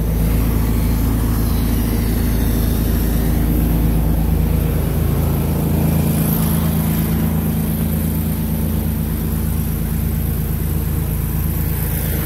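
A pressure-washing rig's engine running steadily at one unchanging speed.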